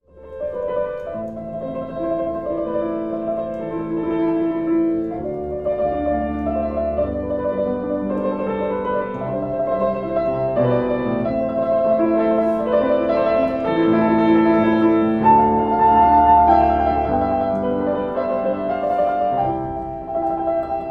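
Background piano music with slow, held chords.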